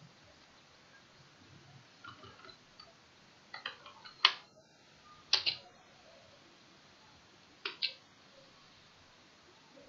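Sharp clicks of a computer keyboard and mouse. A few scattered clicks come about three and a half to four seconds in, the loudest just after, then two close together about five and a half seconds in and a quick double click near eight seconds.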